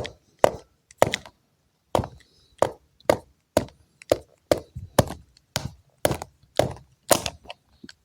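Repeated sharp knocks of a hard object striking a surface, about two a second, some sixteen in all.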